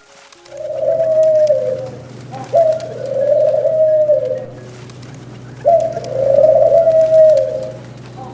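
A bird calling: three long calls, each starting sharply and falling slightly in pitch, over a steady low hum.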